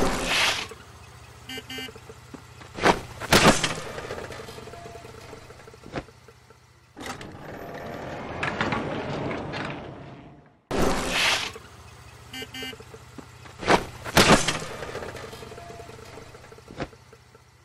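Cartoon sound effects for a small three-wheeled police cart: a quick pair of short horn beeps about one and a half seconds in, two sharp bangs soon after, and hissing swells over a steady low hum. The whole sequence plays twice, starting over about halfway through.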